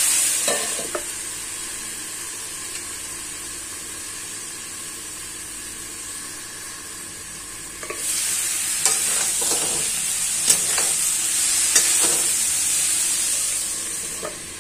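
Cauliflower and tomato sizzling in a steel kadhai over low gas, muffled under a steel lid. About eight seconds in the lid comes off and the sizzle gets louder, with a metal spatula scraping and clinking against the pan. The lid goes back on near the end.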